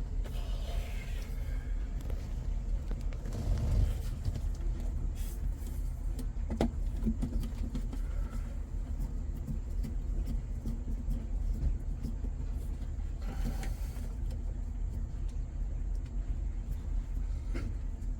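A steady low rumble of running machinery, with a few sharp clicks and knocks of hand tools and wiring being handled.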